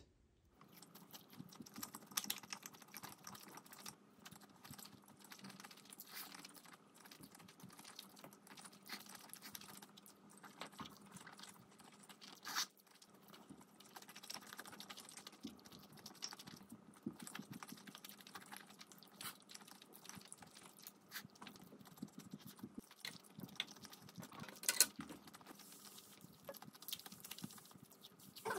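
Close-up eating sounds: a person chewing grilled pork belly, with many small wet clicks and a few sharper clicks such as chopsticks tapping.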